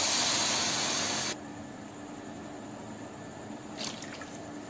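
Water poured from a steel bowl onto sugar in a kadai: a loud splashing hiss that cuts off sharply about a second and a half in. A fainter steady hiss follows, with a brief weaker splash of pouring near the end.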